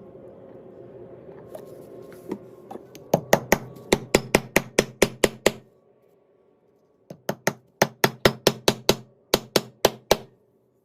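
A power drill runs steadily for about the first three seconds. Then a hammer knocks in two quick runs of sharp blows, about four or five a second, with a pause of about a second and a half between the runs.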